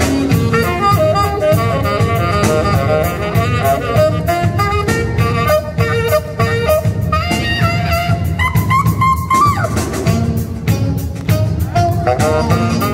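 Live jazz: saxophones play a melody over a drum kit and a steady beat, with a run of high, bending saxophone notes about eight to nine and a half seconds in.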